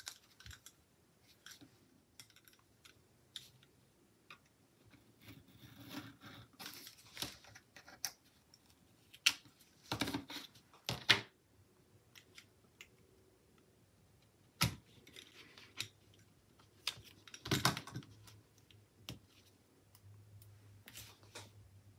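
Quiet handling of paper sticker sheets and planner pages: scattered rustles and taps, a few sharper clicks, and a marker drawing on paper.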